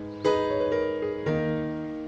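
Background music: a piano striking a new chord about once a second, each chord ringing and fading before the next.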